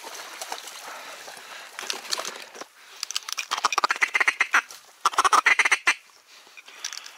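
Ducks quacking in two loud bursts of rapid calls about halfway through, after a few seconds of faint rustle.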